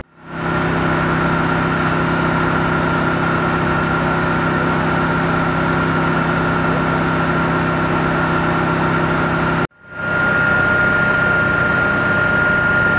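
An engine running steadily at a constant speed, with a steady high whine over its hum. It drops out abruptly for a moment about two-thirds of the way through and comes back unchanged.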